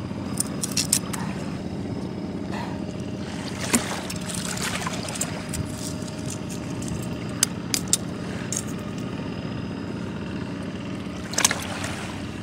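Metal pick knocking and scraping on rock oyster shells: scattered sharp clicks, the loudest about four seconds in and near the end, over a steady low engine-like hum.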